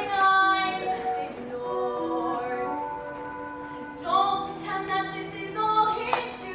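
A female voice singing a musical-theatre song over instrumental accompaniment, in held, gliding notes.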